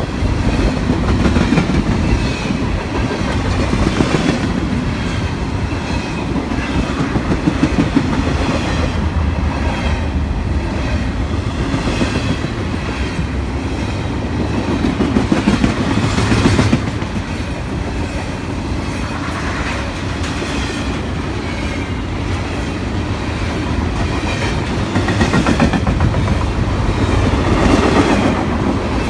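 Freight train cars rolling past: a steady rumble with the repeated clickety-clack of wheels over the rail joints.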